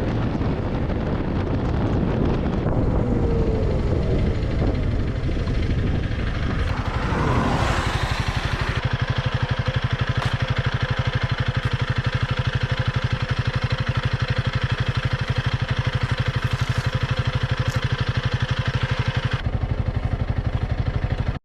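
Single-cylinder engine of a Honda CRF300L Rally dual-sport motorcycle heard from on board while riding. It rises in revs about a third of the way in, then holds a steady cruise with an even, fast pulse, which changes shortly before the end.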